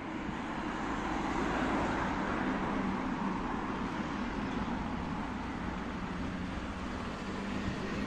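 Street traffic noise: the steady rush of cars on a city street, growing louder over the first two seconds as a vehicle passes.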